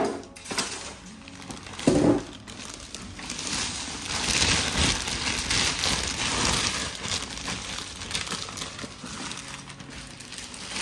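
Plastic packaging crinkling and rustling as it is handled and pulled off a newly unboxed inkjet printer, with a brief low thud about two seconds in.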